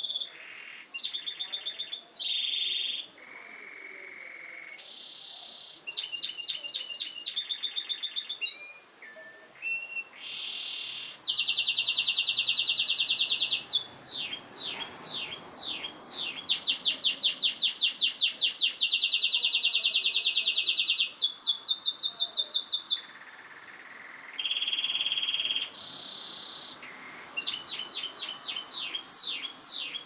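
Domestic canary singing a long song made of successive phrases, each a run of one note repeated many times, some as very fast trills lasting several seconds and some as slower series of downward-sweeping notes.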